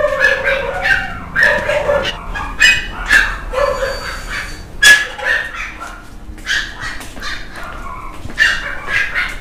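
Dogs barking and yipping: a string of short calls coming unevenly, about one every half second.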